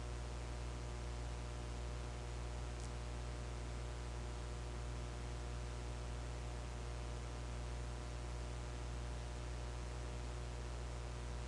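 Steady low electrical hum with an even hiss over it: the recording's background noise with nobody speaking, with one faint tick about three seconds in.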